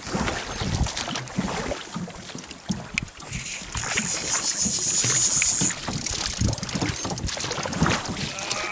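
Water slapping and knocking against an aluminium boat's hull, with oar and boat knocks and wind buffeting the microphone. A high steady hiss runs for about two seconds near the middle.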